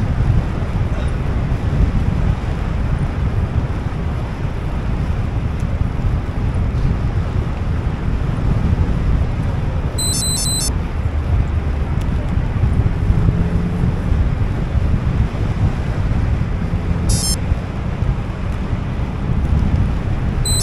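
Wind buffeting the microphone of a camera on a moving bicycle, a steady low rumble. A few short, high-pitched chirps come in about halfway through and again near the end.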